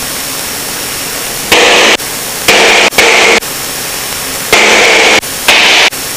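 Steady hiss of an aircraft's headset intercom audio, cut into five times by short blocks of louder, steady drone from a single piston engine and propeller that start and stop abruptly, the way a voice-activated intercom squelch opens and closes.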